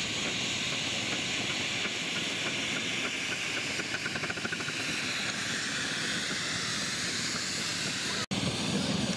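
7¼ in gauge miniature steam locomotive hissing steam as it passes, pulling riding cars, with a short run of quick clicks about four seconds in. The sound breaks off suddenly near the end.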